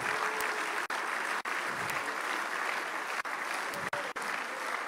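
Congregation applauding steadily, broken by a few brief dropouts in the audio.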